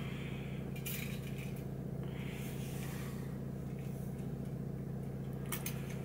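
Bicycle spokes lightly clicking and scraping against the rim and each other as they are threaded through the spoke holes during wheel lacing, with a few clicks about a second in and several near the end, over a steady low hum.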